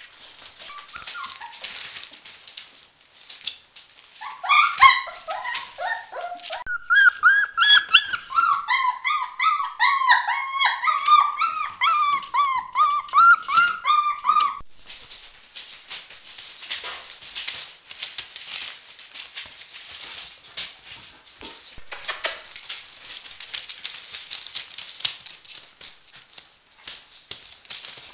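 Four-week-old Border Collie puppies whining and yelping in a fast run of high-pitched cries, about three a second, for roughly ten seconds before they break off abruptly. After that, small paws patter and rustle on newspaper.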